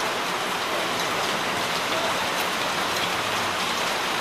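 Heavy rain falling hard and steadily, a constant hiss of rain on surfaces with faint scattered ticks of drops.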